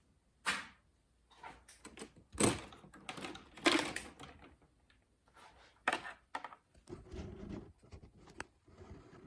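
Scrap copper wire being handled and stripped by hand: irregular knocks, clicks and rustling clatter, with a sharp knock about half a second in and the loudest clattering between about two and a half and four seconds in.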